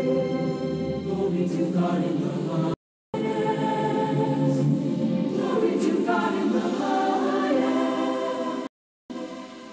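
Choir singing over musical accompaniment, dropping out to silence briefly twice: about three seconds in and near the end.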